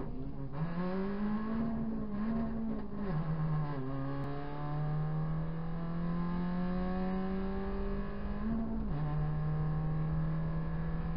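Proton Saga BLM race car's four-cylinder engine at full throttle, heard from inside the cabin. The revs climb and then drop sharply three times as the driver changes up a gear: once at the start, about three seconds in, and near nine seconds in.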